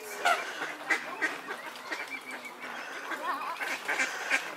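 Water splashing as a red deer stag wades through lily pads, with a few sharp splashes in the first second, while waterfowl call repeatedly around the lake.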